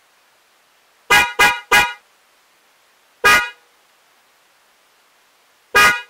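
DENSO J-Horn Hyper electric spiral car horn sounding in short toots: three quick ones about a second in, then a single one a little past three seconds and another near the end.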